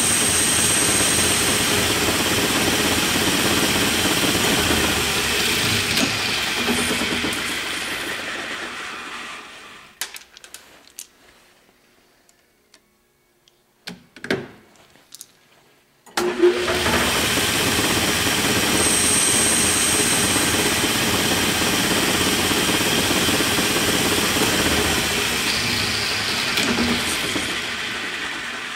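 Hardinge lathe spindle running and cutting a part from a blank, a loud steady machine noise. About nine seconds in it winds down over a couple of seconds. A few clicks and knocks follow as the part is changed in the collet, then about sixteen seconds in the spindle starts again abruptly for the next cut.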